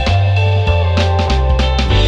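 Background music with heavy bass, drums and guitar.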